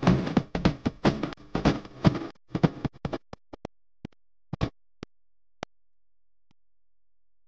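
Background music with a beat that thins to a few separate sharp hits and stops a little past halfway, followed by silence.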